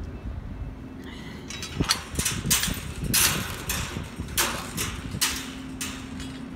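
Handling noise and footsteps while walking with a phone: a quick, irregular run of rustles and scuffs as clothing brushes against the phone, with a faint steady hum at the start and near the end.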